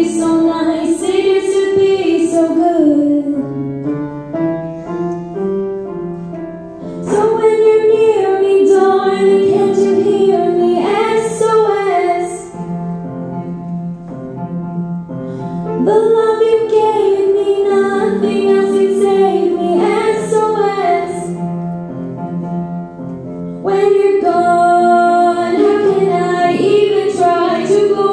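Solo female vocalist singing a pop ballad into a microphone over instrumental accompaniment, with stronger sung passages returning every several seconds between softer ones.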